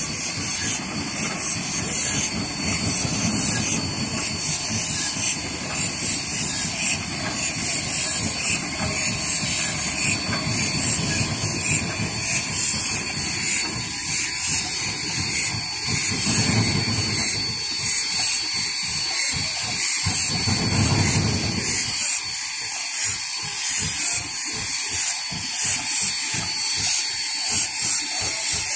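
Steam locomotive at rest with steam hissing steadily, pulsing in an even rhythm, over a low rumble that drops away about two-thirds of the way through.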